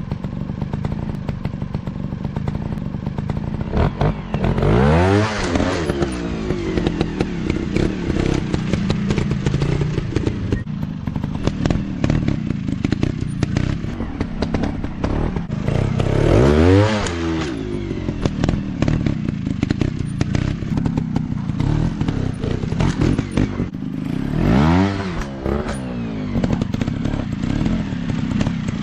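Off-road trail motorcycles running continuously. One swells loud and falls away as it passes close about five seconds in, again around seventeen seconds, and once more near twenty-five seconds.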